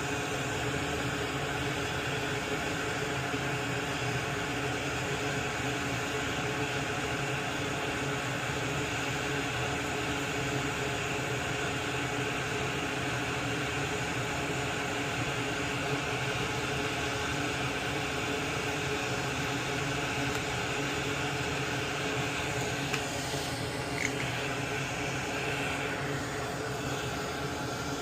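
Steady rushing hiss and hum of a small electric blower fan running continuously at the repair bench, with a couple of faint ticks near the end.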